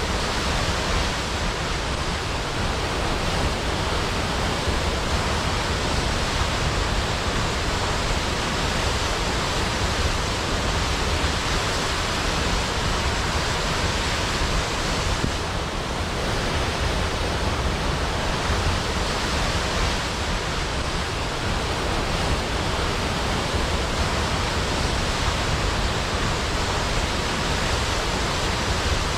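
Large waterfall crashing steadily into a pool: a continuous, even rush of falling water with a deep low rumble beneath it.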